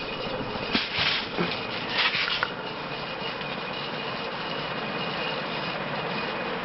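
NuTone Slimline ceiling fan with a cast-aluminum spinner motor and metal blades running on high speed: a steady rush of moving air with a faint hiss from the bearings, which the owner puts down to dirt in them. There are a couple of brief louder bursts of noise in the first three seconds.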